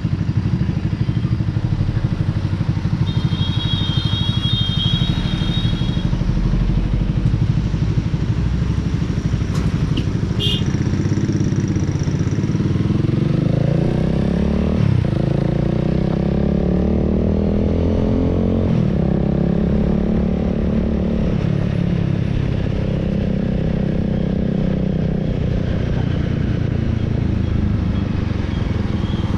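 Honda Rebel 300's single-cylinder engine running on the move, heard from the rider's seat. In the middle the revs rise and drop twice, as with gear changes.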